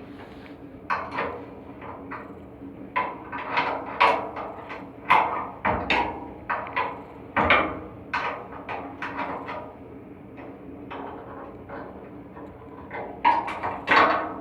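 Irregular knocks and clatters of metal parts and tools being handled, over a steady machine hum.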